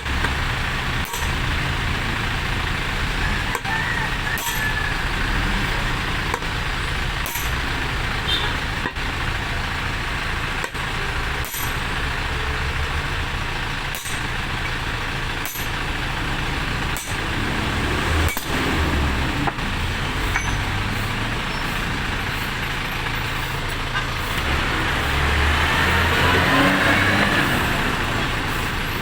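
A steady vehicle engine rumble that swells louder for a few seconds near the end, with faint regular ticks.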